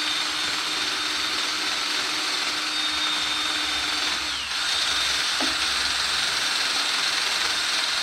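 Aerosol spray-paint can spraying in a long steady hiss, with a short break about halfway through before spraying resumes.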